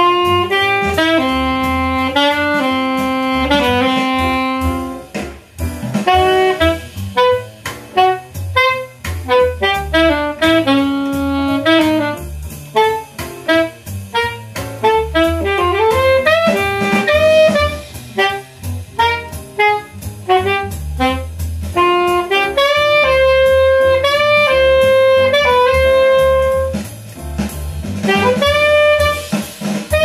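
Alto saxophone playing a jazz melody note by note over a play-along backing track with a steady bass line.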